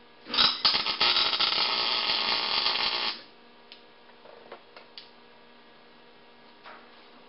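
Wire-feed (MIG) welding arc running for about three seconds as a short weld is laid on the steel barbecue tank's lid, then stopping. A few light taps and clicks of handling follow, over a steady electrical hum.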